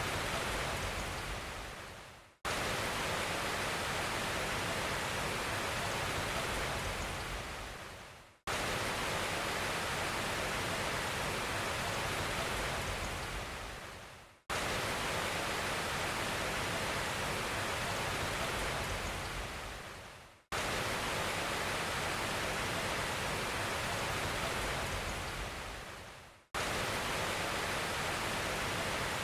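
Even hiss of noise, like rain or rushing water, spread across all pitches. It fades out and cuts back in abruptly about every six seconds, four times in all, as a looped background sound track does.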